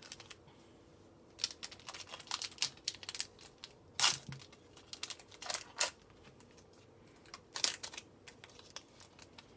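Plastic wrapper of a trading-card pack being torn open and crinkled by hand: irregular crackles and rips starting about a second and a half in, the loudest about four seconds in.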